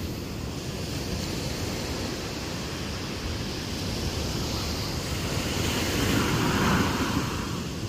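Ocean surf breaking and washing up the beach, with wind rumbling on the microphone. The surf swells louder about six seconds in.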